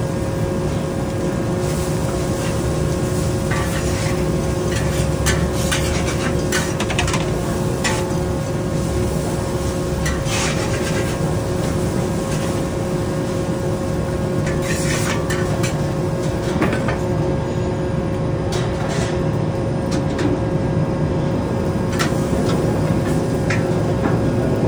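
Hawker wok station: a burner runs steadily under a large wok, while a long metal ladle scrapes and clanks against the wok, stir-frying noodles.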